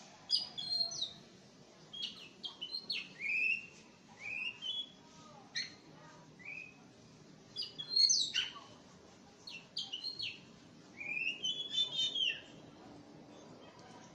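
Oriental magpie-robin (Aceh kacer) singing: a string of short, varied whistled phrases of rising and falling notes, one every second or so, loudest about eight seconds in.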